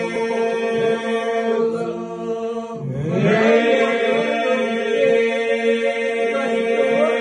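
Albanian Lab iso-polyphonic singing by a group of men: the group holds a steady drone (iso) while solo voices carry the melody above it. About three seconds in, a voice enters with a rising glide, and the lead and answering lines weave over the unbroken drone.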